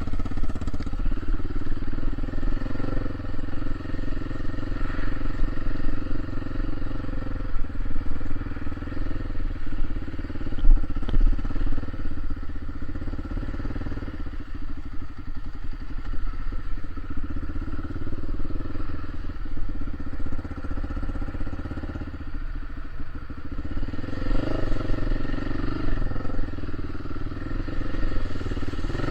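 A motor vehicle's engine running steadily as it drives, a continuous drone that rises and falls slightly with the throttle.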